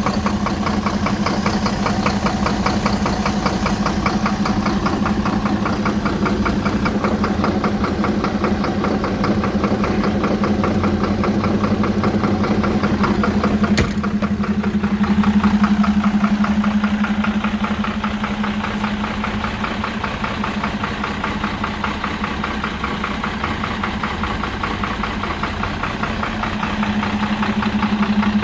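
Mercedes-Benz Atego 2628 truck's diesel engine idling steadily, with one sharp click about halfway through.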